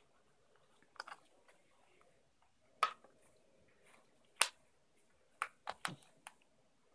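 Soft handling noises with a handful of short, sharp clicks as a fabric boot is worked onto a dog's paw, several of them close together near the end.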